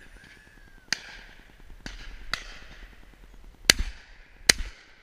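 Double-barrelled shotgun fired twice in quick succession at a driven pheasant, both barrels about a second apart near the end. Three fainter, more distant shots come earlier.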